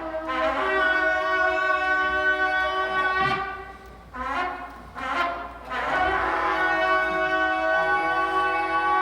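Traditional Korean horns blowing long held notes in two pitches at once, in two long blasts with a short break about halfway, the calls that open a pungmul performance.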